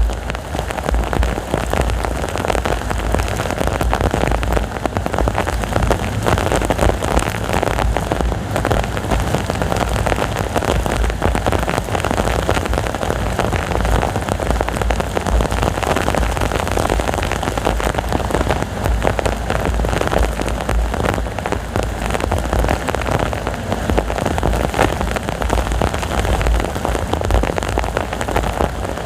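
Heavy rain pouring steadily, with a low rumble of strong wind underneath.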